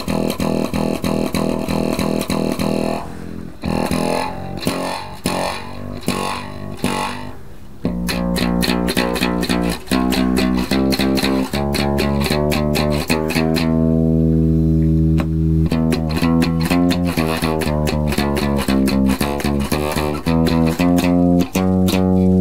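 Nylon-strung baritone guitar played through its newly installed Seymour Duncan Wavelength piezo pickup and an amplifier, the first test of the electronics. It opens with a quick run of plucked notes, goes looser and quieter for a few seconds, then settles into steady plucked notes over ringing low bass notes from about eight seconds in.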